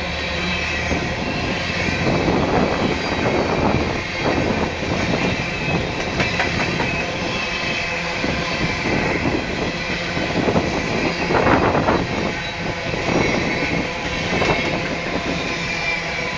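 Freight train of open-top hopper cars rolling past: a steady rumble of steel wheels on rail, broken by irregular clacks and bangs as trucks cross rail joints, with a thin, steady wheel squeal above it.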